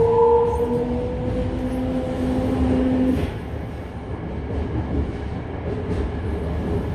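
Toei 5300 series electric train heard from inside the car: the traction motor and inverter whine rises slowly as it accelerates, then cuts off about three seconds in as power is shut off. Steady running rumble of the wheels on the rails continues after that.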